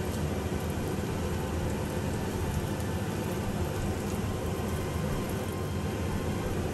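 Chunks of ginger sizzling steadily in hot oil in a stainless steel wok, with fine crackling.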